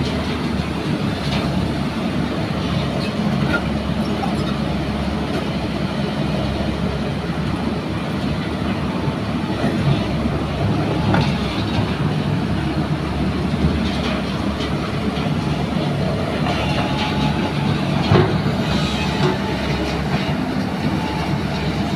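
JCB crawler excavator's diesel engine running steadily, with the clatter of its steel tracks as it moves and turns. A few sharper clanks stand out, the loudest near the end.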